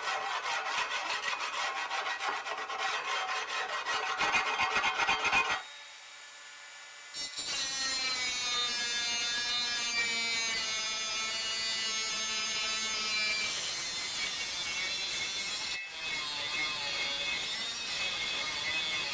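Rhythmic back-and-forth strokes of a hand tool sawing or rasping, for about five and a half seconds. After a short pause comes a steadier sound with several held, slowly wavering tones.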